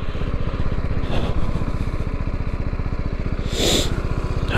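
BMW G310GS's single-cylinder engine ticking over at low revs with a steady, even beat as the bike rolls to a stop. A short scuffing noise comes about three and a half seconds in.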